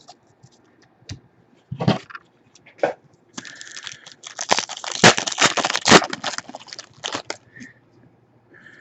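Foil wrapper of a 2014 Panini Elite football card pack being torn open and crinkled. A few separate clicks of card handling come first, then about four seconds of dense crackling from a little past three seconds in.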